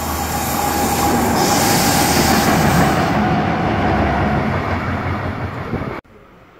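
Red diesel shunting locomotive passing close by on the platform track: a steady low engine drone under wheel and rail noise that grows to its loudest two to three seconds in. The sound cuts off abruptly about six seconds in.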